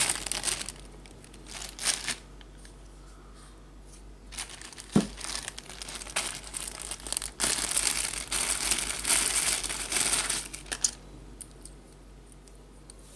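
Plastic packaging crinkling and rustling in irregular bursts as a small radio headset is unwrapped, with a sharp click about five seconds in. The longest, loudest crinkling runs from about seven and a half to eleven seconds.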